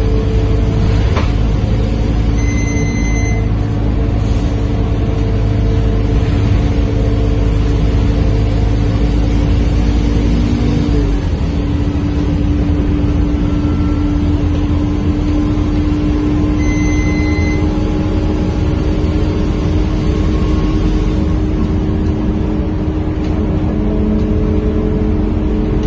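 Scania K230UB bus's diesel engine and ZF automatic gearbox under way, heard from inside the passenger cabin: a low rumble with steady whining gear tones. The tones change pitch about eleven seconds in. A short electronic beep sounds twice.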